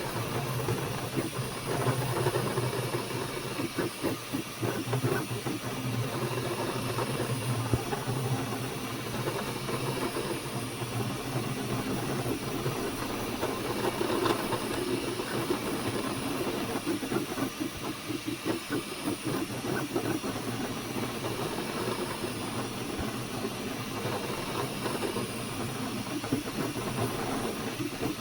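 FlashForge Adventurer 5M 3D printer running a print: a steady hiss from its cooling fans over a low hum, with the busy, ever-changing whir of its stepper motors as the print head moves.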